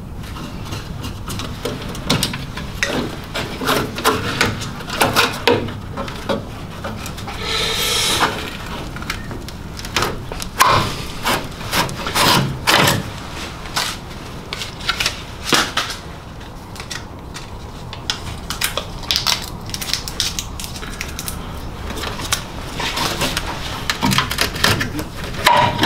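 Hands working an old car wiring loom loose from the chassis: irregular clicks, knocks and rustling of wires and connectors being pulled and handled, with one longer scrape about eight seconds in.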